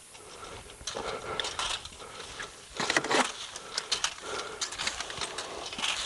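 Dry pine straw rustling and crackling in irregular bursts as armfuls of needles are gathered and stuffed by hand into a box baler, loudest a little under three seconds in.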